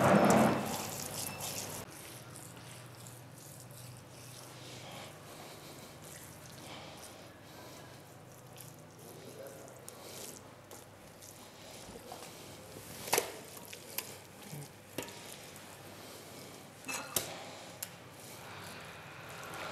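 Hands working a wet spice paste into a whole scored fish and scooping more from a glass bowl: quiet handling sounds, with a few sharp clicks about two thirds of the way in and again near the end.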